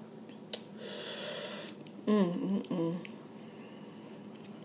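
A person drawing air in sharply through the mouth for about a second, a hiss that cools lips burning from spicy seafood sauce, starting with a click; about two seconds in comes a short wavering hum.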